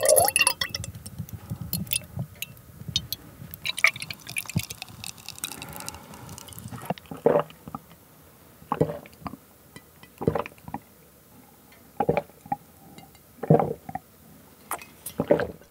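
A milky drink poured from a paper carton into a glass mug, a steady filling sound for about six seconds. Then gulps as it is drunk, about one every second and a half.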